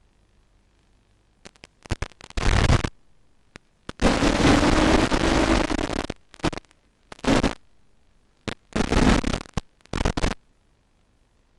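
Bursts of static hiss from a 5.8 GHz analog FPV video receiver's audio output, cutting in and out abruptly: several short bursts and one of about two seconds, with near silence between them.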